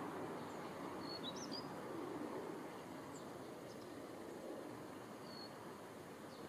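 A few short, thin, high chirps from a small songbird: a quick cluster about a second in, one rising, and a single note near the end. Steady low background noise runs underneath.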